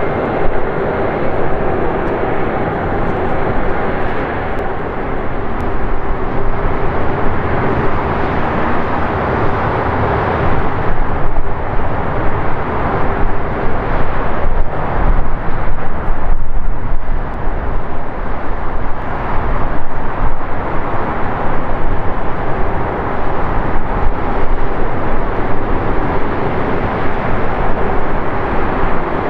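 Rolls-Royce Trent 700 jet engines of an Airbus A330-200 running at taxi idle: a loud, steady rumble with a held hum.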